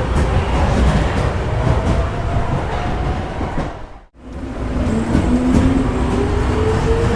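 Subway train pulling out: a steady rumble and rattle of the cars that fades out about four seconds in and comes straight back, with the whine of the electric motors rising in pitch near the end as the train gathers speed.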